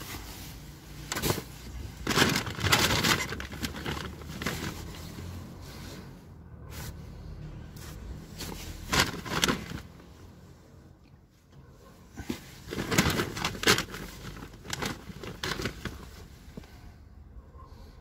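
Plastic bags and clothing rustling and crinkling in irregular bursts as items are rummaged through and moved about, over a low steady rumble.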